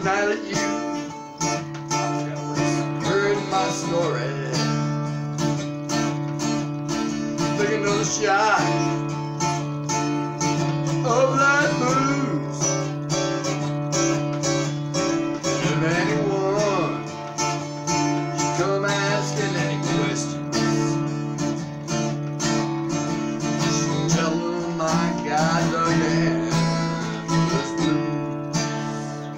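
Acoustic guitar strummed in a steady rhythm, its chords ringing on throughout.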